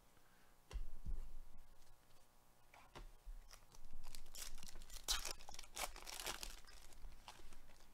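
Foil wrapper of a Panini Select baseball card pack crinkling and tearing as it is ripped open, faint at first and louder in the second half.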